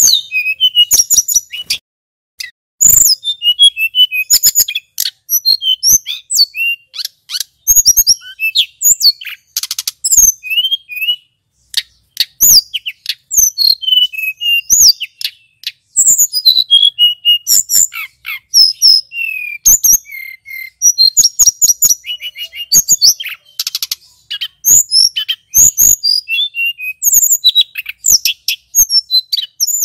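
Male tledekan gunung (hill blue flycatcher) singing in full song: fast, varied phrases of high whistles, chirps and rapid trills, in dense bursts broken by short pauses.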